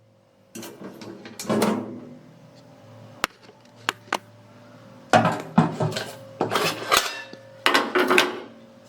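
Metal cookware being handled, clattering and knocking in several bursts, with three sharp clicks between them about three to four seconds in.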